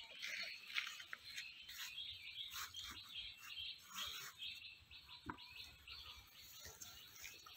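Small birds chirping: many short, high calls overlapping, with a few soft clicks among them.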